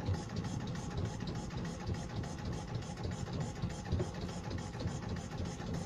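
Small wooden motorboat's inboard engine running steadily at low cruising speed, a low rumble under a faint wash of water and wind noise.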